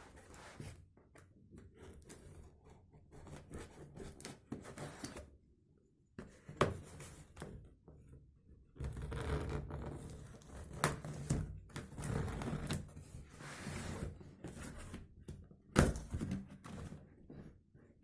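A cardboard box and packaging being opened and handled by hand: irregular tearing and rustling with scattered knocks and clicks, louder in the second half.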